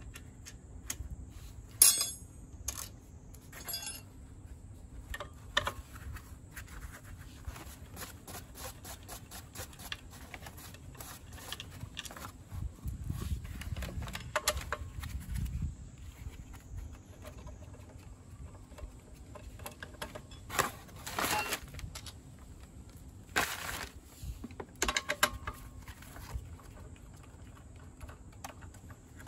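Socket wrench on a long steel extension working the bolts of a Suzuki Address V125G scooter's transmission case, making runs of quick small metal clicks and clinks. Louder metallic clanks come about two seconds in and again around the twenty-second mark, as tools and loosened bolts knock together.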